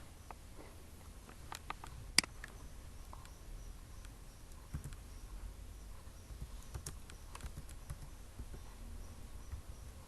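Scattered computer mouse clicks and keyboard taps, irregular and sparse, with one sharp click about two seconds in, over a faint low hum.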